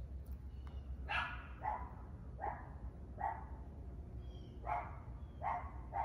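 A neighbourhood dog barking: about six short single barks, faint and unevenly spaced, with a pause of over a second midway.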